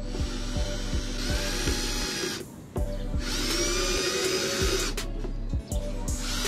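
Electric drill spinning a homemade electrical-tape wrapping head. It runs in spurts, its whine rising as it speeds up, and cuts out briefly about two and a half seconds in and again near the end, over background music with a steady beat.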